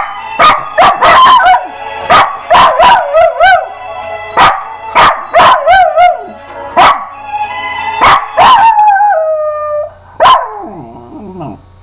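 Small black-and-tan dog howling along to a song, its howls wavering in pitch between the music's sharp regular beats. About two-thirds of the way through, one long howl slides down and then holds.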